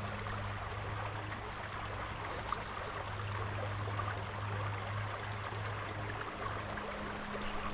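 Creek water running over stones, a steady rush, with a steady low hum beneath it.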